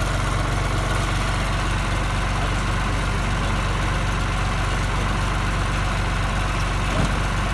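John Deere 2240 tractor's diesel engine idling steadily, with one short knock near the end.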